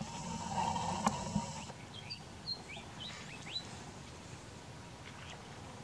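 A rushing noise with a low hum for about the first second and a half, then a quick run of about half a dozen short, high chirps from small birds.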